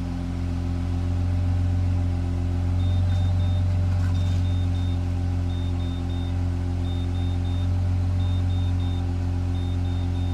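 GZAIR SA104 portable carbon monoxide detector going into alarm: about three seconds in it starts sounding short high beeps in groups of three, one group about every second and a half, the sign that it has sensed carbon monoxide. Under the beeping runs a loud, steady low hum.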